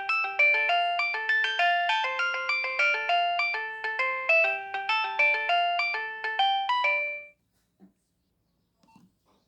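Nokia 6560 mobile phone playing a quick electronic ringtone melody through its speaker, with several notes sounding at once; it cuts off about seven seconds in, followed by a couple of faint clicks.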